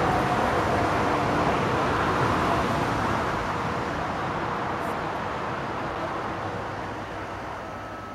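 Steady noise of a towed Boeing 747-400 and its tow tug, with a faint steady whine under it, slowly fading out toward the end.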